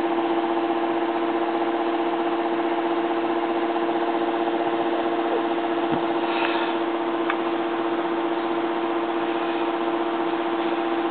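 A steady mechanical hum with one strong, even tone and fainter tones above it, with a faint small click about halfway through.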